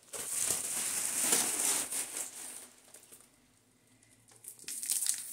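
Packaging rustling and crinkling as a boxed wallet is handled and unwrapped, dying away for about a second and a half in the middle before starting again near the end.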